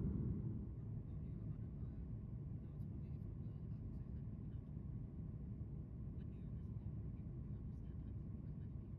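Steady low rumble of a Boeing 737 MAX 8's passenger cabin in flight, the drone of airflow and its CFM LEAP-1B engines, easing slightly about half a second in.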